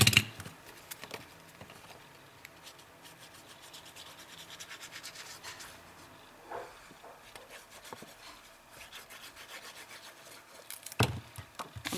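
Sponge tip of a liquid glue bottle rubbed back and forth over the back of a piece of paper, spreading the glue in quick soft strokes that pause briefly about halfway through. A single sharp click right at the start.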